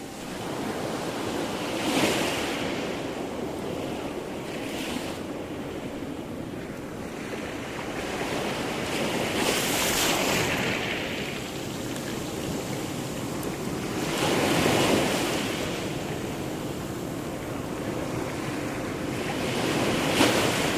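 Sea surf: waves rolling in and breaking, rising and falling in surges every few seconds over a steady wash of water.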